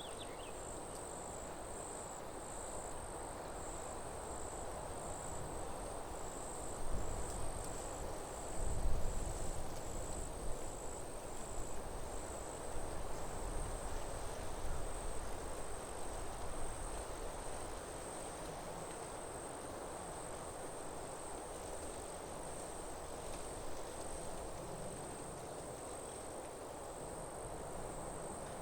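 Outdoor forest ambience dominated by an insect's high, thin trill, pulsing regularly for the first few seconds and then running on as one steady tone, over a soft background hiss. A few low rumbles come in a few seconds in.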